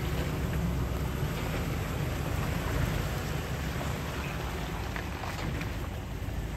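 Ram 2500 Power Wagon's 6.4-litre Hemi V8 rumbling at low revs as the truck crawls through muddy ruts, under a steady crackling hiss.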